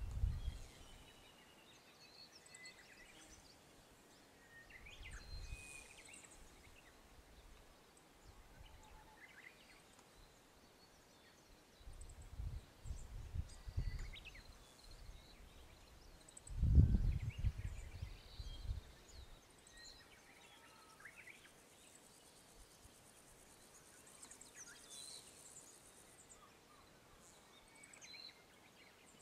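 Scattered short bird chirps and calls over a quiet open-air background, with a few gusts of wind rumbling on the microphone, the strongest a little past halfway.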